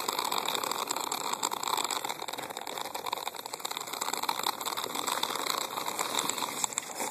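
Small wheels of a rolling pet cart rattling steadily over a paved driveway as it is pulled along.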